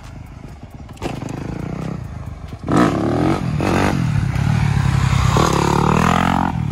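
Dirt bike engine revving as the rider accelerates and lifts the bike into a wheelie, the revs sweeping up sharply about three seconds in and again near the end.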